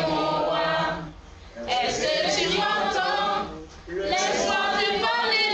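A group of voices singing a cappella in phrases, with two short pauses between them.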